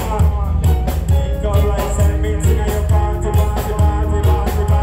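Live reggae band playing: a steady drum beat and heavy bass with keyboards, and a vocalist singing over it.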